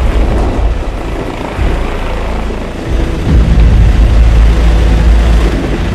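Helicopter hovering overhead, a steady rotor and engine noise heavy in the low end, growing louder about three seconds in.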